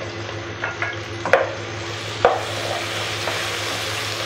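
Chopped okra and onions sizzling in oil in a pan as tomatoes and green chillies are added and stirred in, with a few sharp clinks against the pan, the loudest a little past two seconds. The sizzle grows fuller and steadier in the second half.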